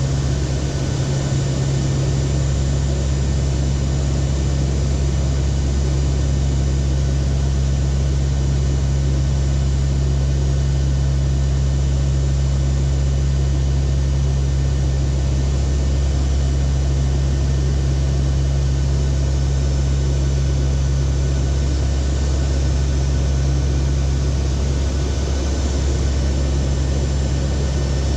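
Cockpit drone of a NOAA WP-3D Orion's four turboprop engines in flight: a steady low hum with constant airflow hiss over it.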